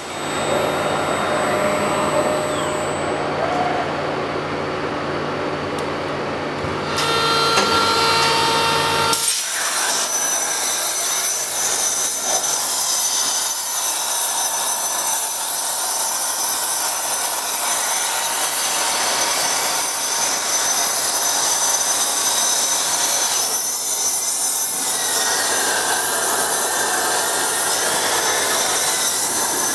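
A BT40 CNC drill spindle (8 HP, 3000 RPM) running and drilling into steel plate, a steady hum with a higher tone over it. About nine seconds in, a plasma cutting torch takes over and cuts the plate with a steady hiss, louder than the drilling.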